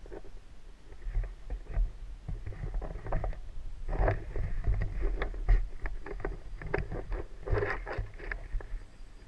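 Wind rumbling on the microphone, with irregular crackling and rustling, thickest from about four seconds in until near the end.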